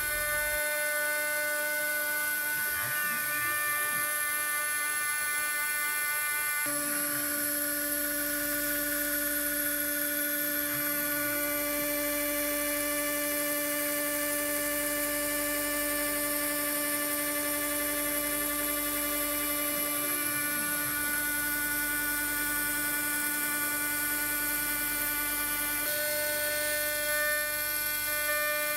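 CNC milling machine spindle running with a steady whine while an end mill cuts the outer profile of a metal plate. The pitch of the whine shifts a little about a quarter of the way in and again near the end.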